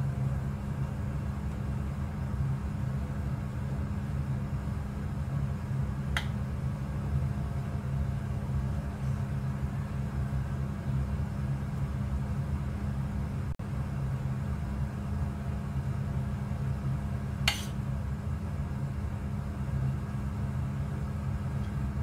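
Steady low hum of a running motor or fan, with two light clicks, one about six seconds in and one a little past the middle.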